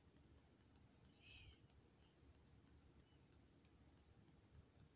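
Near silence: room tone with faint ticking, about three ticks a second, and a brief soft hiss about a second in.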